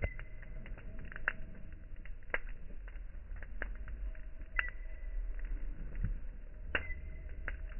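Campfire crackling: irregular sharp pops of burning wood, about one every second or two, over a low steady rumble.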